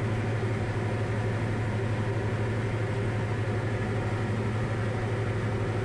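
Diamond DA40 light aircraft's piston engine and propeller droning steadily, heard from inside the cockpit, with an even low hum and fine pulsing that stay constant.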